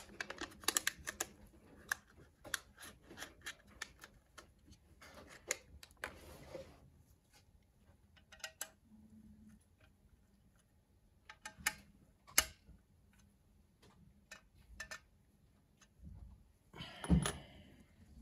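Scattered light clicks and taps of small parts being handled at a QHY CFW3L filter wheel as threaded narrowband filters are fitted into it. There is a short rustle about six seconds in and a louder scuffle near the end.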